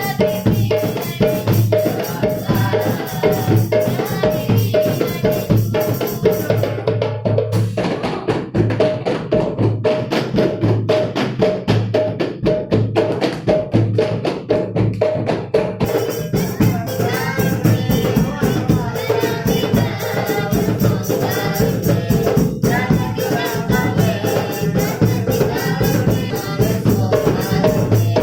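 Marawis ensemble playing: hand drums beat a fast, steady rhythm over deep drum strokes, with tambourine-like jingles on top. The jingling high end drops away for several seconds in the middle, then comes back.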